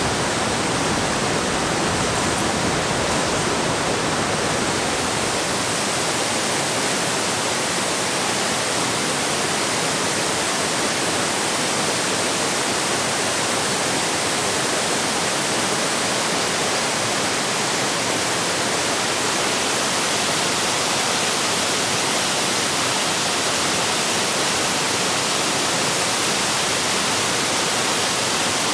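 Steady, even hiss of running water with no breaks or single drops standing out; a faint low rumble under it drops away about five seconds in.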